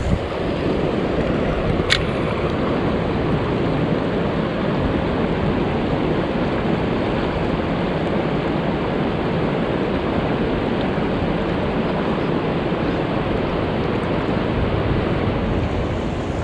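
Steady rush of river current moving over a rocky riverbed, with one brief click about two seconds in.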